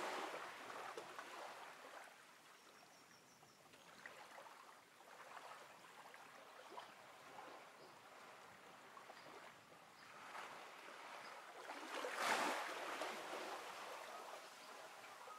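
Derwent Inktense pencil scratching on paper as the background is coloured in, a faint rustling hiss that swells and fades with the strokes and is loudest about twelve seconds in.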